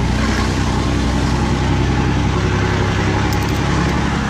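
Ford F-250's six-cylinder engine running steadily through its exhaust with a deep rumble.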